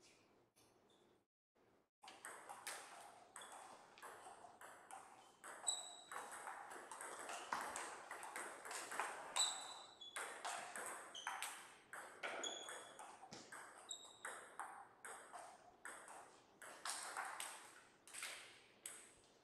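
Plastic table tennis ball being hit back and forth and bouncing on the table: a quick run of sharp, ringing hits that starts about two seconds in.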